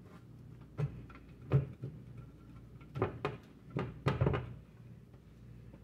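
Kitchen handling at a frying pan on a stove: a few sharp knocks and clatters, one about a second and a half in and a cluster between three and four and a half seconds, over a steady low hum.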